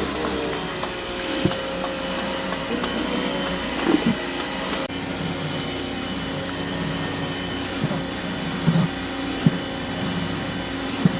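Electric pressure washer running with a steady motor whine, with a few short knocks in the second half.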